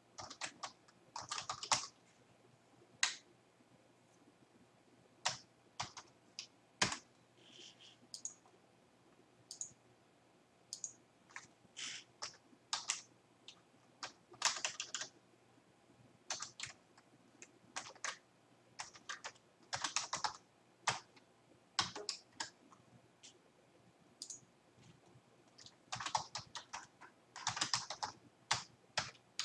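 Computer keyboard typing in short bursts of keystrokes, with scattered single clicks between them.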